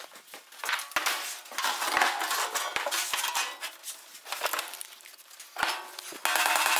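A sheet-steel floor panel being handled and bent by hand on a steel workbench: irregular metallic clanks and rattles. Near the end a handheld grinder starts abruptly and runs steadily.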